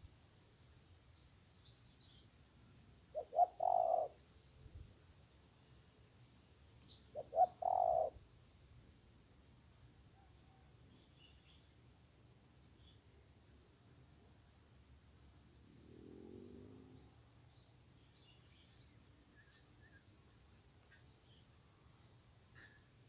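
Spotted dove cooing twice, about four seconds apart. Each call is a couple of quick notes ending in a longer coo. Faint high chirps of small birds run throughout, with a softer low call near the middle.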